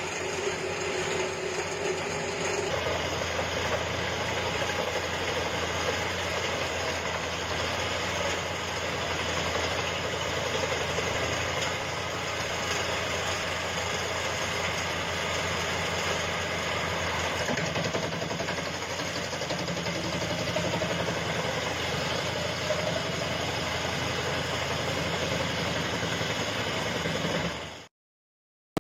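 Pezzolato PTH 40.70 M self-propelled wood chipper running steadily, its engine and chipping drum giving a continuous drone; it cuts off abruptly near the end.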